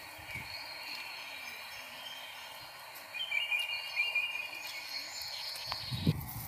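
Outdoor ambience with a steady high-pitched insect drone, which grows louder for a second or two about halfway through.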